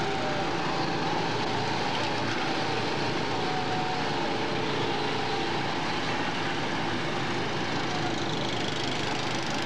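Several go-kart engines running together as the karts lap the track: a steady mechanical drone with a held whine.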